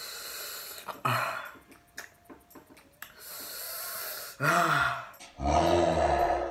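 A man reacting to the burn of very spicy noodles: hissing breaths drawn through the mouth and short vocal sounds, then a loud strained cry about five and a half seconds in.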